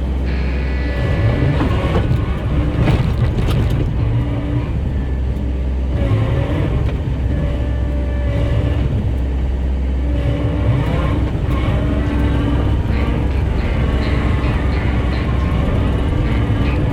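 Skid steer engine running steadily, its pitch rising and falling in places.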